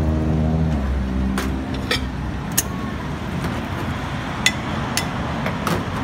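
Sharp metal clinks, about six of them, of ladles and wire noodle-strainer baskets knocking against a stainless steel soup pot, over steady street traffic noise. A motor vehicle engine hums low and steady for the first second or so.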